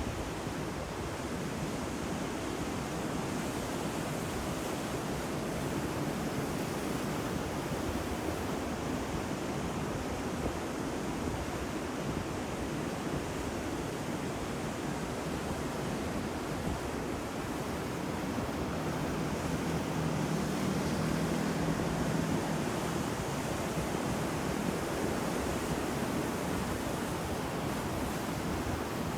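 Ocean surf: a continuous rush of breaking waves, swelling slightly louder about two-thirds of the way through.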